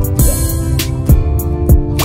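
Background music: a steady beat with guitar.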